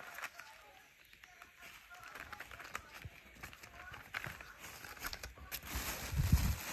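Bubble wrap and plastic packaging crinkling and rustling as boxed fireworks are handled, with scattered small clicks. It gets louder about five and a half seconds in, with a dull handling bump near the end.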